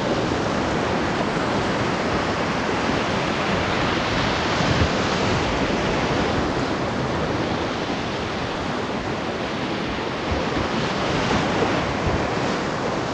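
Whitewater rapids of a mountain river rushing over boulders, a loud steady rush heard from a boat in the middle of the rapid.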